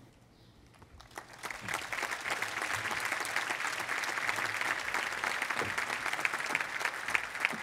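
Large crowd applauding: clapping begins about a second in, swells over the next second and then holds steady as dense, many-handed clapping.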